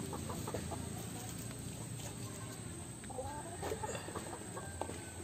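Light clicks and rustling as a crab is tied up with a strip of dried leaf, with a few short bird-like calls in the background about three seconds in.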